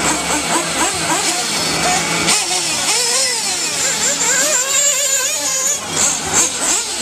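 Several radio-controlled off-road buggies' small engines whining as they run the track, their pitch rising and falling over and over as the cars accelerate and slow.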